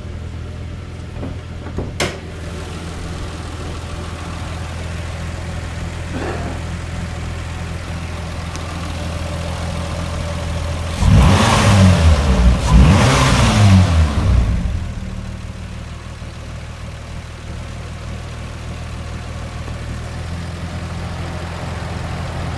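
A 1996 Nissan Maxima SE's 3.0-litre V6, at 240,000 miles, idling steadily. About halfway through it is revved in a few quick blips that rise and fall, then drops back to a smooth idle.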